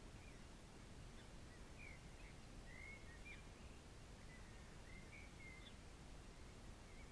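Near silence with faint, scattered bird chirps: short sliding notes every second or so, over a low steady background hiss.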